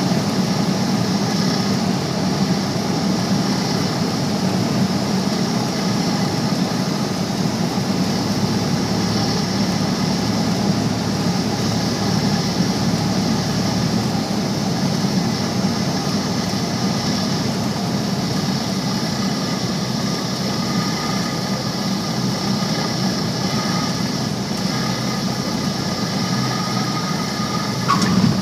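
Small single-engine propeller plane's engine and propeller droning steadily, heard from inside the cockpit with air rushing past, on final approach. A brief louder bump near the end as the wheels touch down on the runway.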